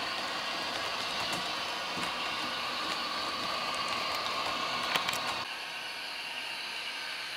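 H0-scale Roco model of the TEE Edelweiss RAm diesel railcar running on track, its ESU sound decoder playing diesel engine sound through the model's small speaker over the rolling noise. A few sharp clicks come about five seconds in, after which the sound turns thinner with less low rumble.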